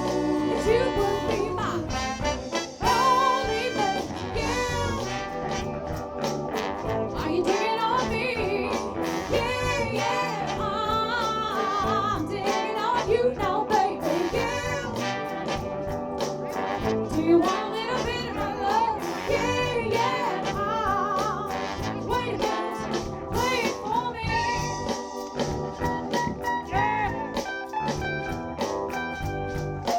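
Live soul band playing a song: a lead singer's voice over drums, bass and keyboards, with a horn section.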